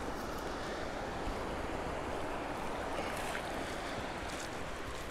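Steady rush of river water flowing past the shallow, weedy bank, with wind rumbling on the microphone.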